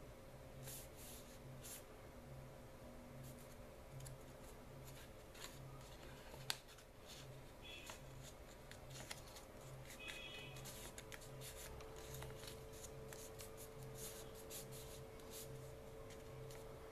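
Faint rustling and crackling of a sheet of origami paper being folded and creased by hand, with one sharper click about six and a half seconds in. A steady low hum runs underneath.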